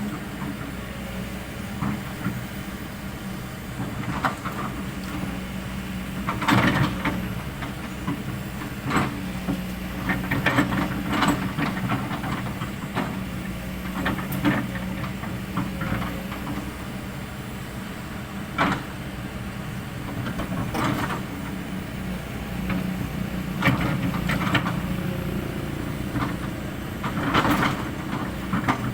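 Kobelco SK200 hydraulic excavator's diesel engine running steadily while it works, with short louder noises from the machine every few seconds.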